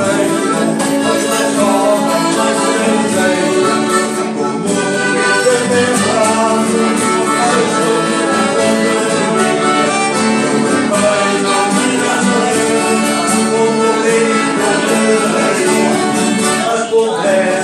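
Live folk music: a man singing to accordion and acoustic guitars.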